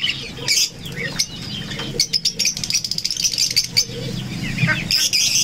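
A cage full of lovebirds chattering in rapid, high chirps and squeaks, with flutters of wings against the wire.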